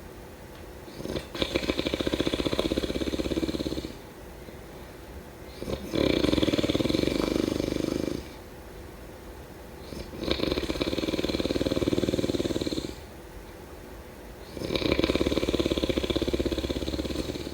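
A sleeper snoring in a steady rhythm: four long snores of two to three seconds each, with a fast flutter to them, about one every four seconds, with quieter breathing between.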